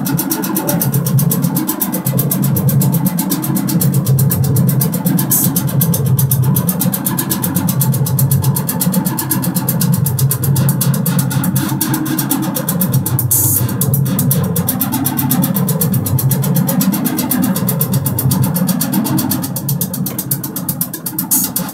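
Arturia MiniBrute analog monophonic synthesizer holding a low, buzzy note under the cat's paws on the keys, its tone sweeping up and down every couple of seconds as the filter is moved.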